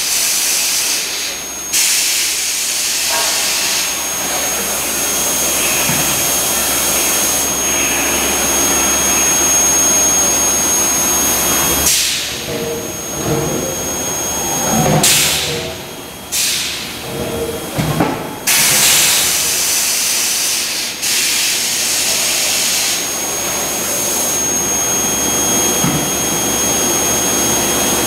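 Medium-frequency induction forging heater running, a steady high-pitched whine from the induction coils over a loud hissing rush that swells and drops several times. Irregular clatter breaks in around the middle.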